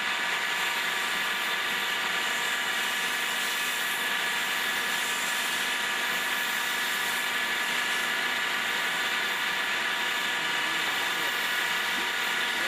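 Automatic wood-turning copy lathe running steadily: a constant pitched machine hum over a hiss, holding the same level throughout.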